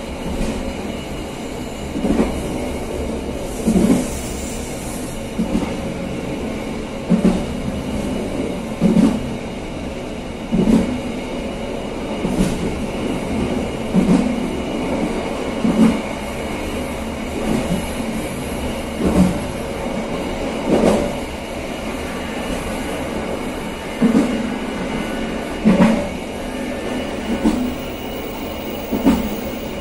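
Passenger train running on the line, a steady rumble with a heavy wheel knock about every second and a half to two seconds as the carriage wheels pass over rail joints.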